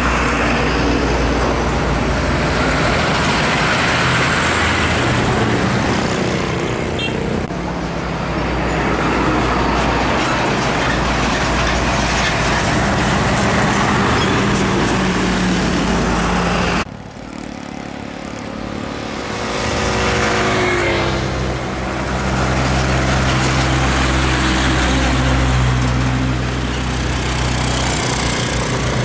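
Old diesel trucks, a Hino Ranger and a Nissan Diesel, driving past one after another, engines running with tyre and road noise. About two-thirds of the way through, one engine note falls in pitch.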